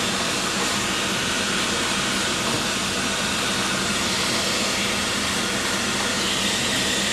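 Vacuum cleaner running steadily on its low setting, a constant rush of air over a low hum, its hose nozzle drawing dust off a loudspeaker's paper cone.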